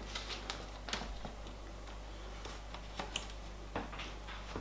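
Light, irregular clicks and taps of a replacement laptop LCD panel being handled and seated into the plastic screen lid.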